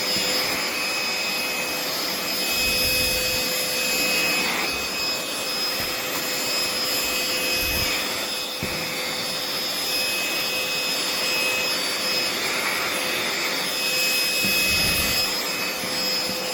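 Aspiron handheld cordless vacuum cleaner running steadily: a continuous motor and fan whine over rushing air.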